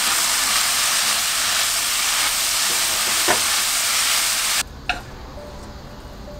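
Bracken fern stems sizzling loudly in hot oil as they are stir-fried in a pan, with a single knock of the utensil against the pan about halfway through. The sizzle cuts off abruptly about two-thirds of the way in, leaving a much quieter stretch with one sharp click.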